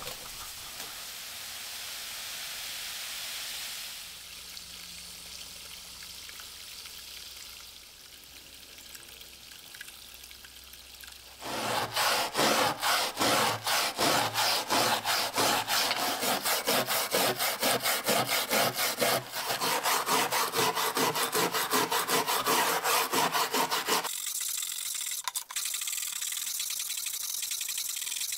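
Baking soda poured in a soft, steady hiss over a rusty steel knife blade in a stainless steel tray. After a quieter spell, a small brush scrubs the wet, soda-covered blade in loud, rapid back-and-forth strokes for about twelve seconds. Lighter scrubbing follows near the end.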